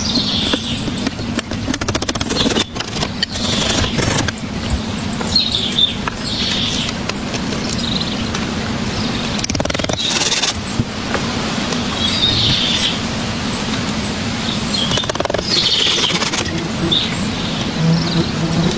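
Small birds chirping in short high calls every second or two over a steady low background rumble, with scattered sharp clicks and knocks.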